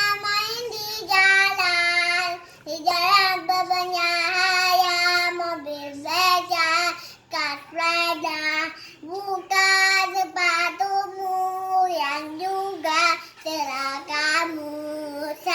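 A child singing a song unaccompanied, in phrases of held notes with short breaks between them.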